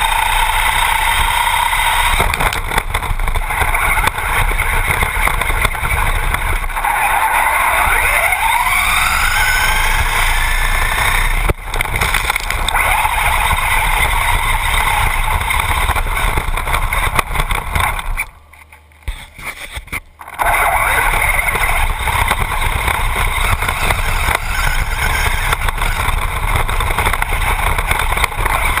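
Brushless electric motor of a Traxxas Bandit RC buggy, heard from on board, whining in rising sweeps as it accelerates, over a steady rushing noise of tyres and wind. The sound drops away almost completely for about two seconds past the middle, then picks up again.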